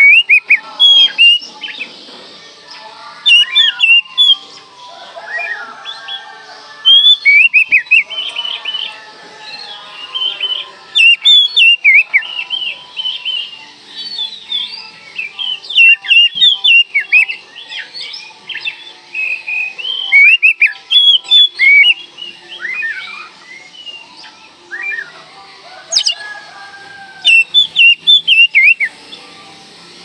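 Oriental magpie-robin singing in full voice: loud bursts of sharp, quickly falling whistled notes about every two to four seconds, with softer, lower warbling between the bursts.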